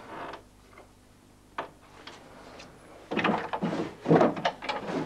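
Wooden wardrobe door being handled, with a single sharp knock about a second and a half in, then dressing-table drawers being opened and pulled about, giving a run of clattering, sliding knocks from about three seconds in.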